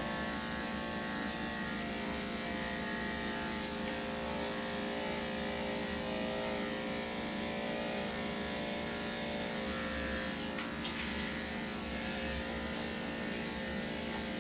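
Corded electric dog-grooming clippers with a #10 blade running steadily at a constant hum while trimming a dog's coat and leg.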